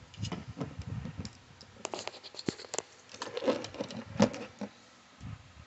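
Irregular light clicks and scrapes of metal folding knives being handled and set down among other knives on a tabletop, the loudest click about four seconds in.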